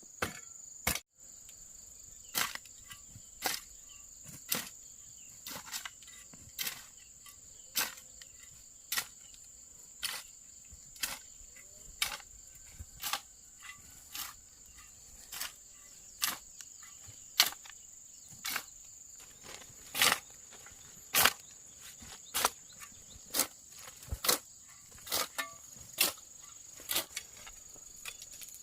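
Regular chopping strokes with a blade, about one a second, over a steady high-pitched hum.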